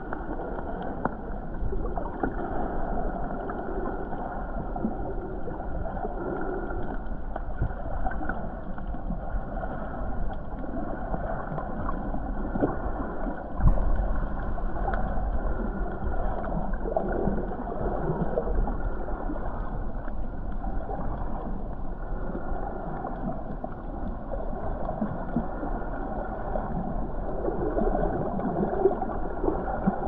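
Muffled, steady underwater noise of moving water and surge, with one bump about fourteen seconds in.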